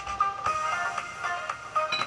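Background music: a melody of short, separate notes.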